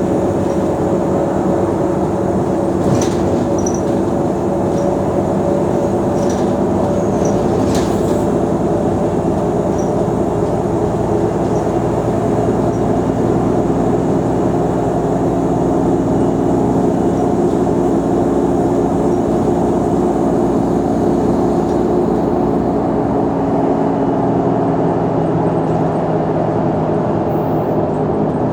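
Mercedes-Benz O345 Conecto G articulated bus's engine running steadily as the bus drives, its pitch shifting slightly, with a few faint clicks and rattles.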